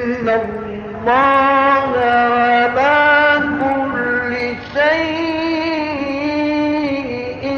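Male Quran reciter chanting in the ornate mujawwad style: one voice holding long melismatic notes with turns and small steps in pitch, rising to a higher note about five seconds in.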